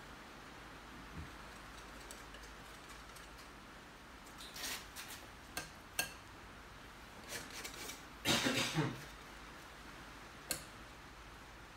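Scattered light clicks and scrapes of painting tools working oil paint on the palette and canvas, with a longer scraping rustle about eight seconds in, over quiet room tone.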